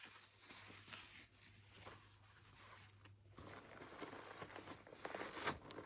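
Faint rustling and handling of a camp towel, soft irregular fabric noises with a few small clicks near the end, over a low steady hum.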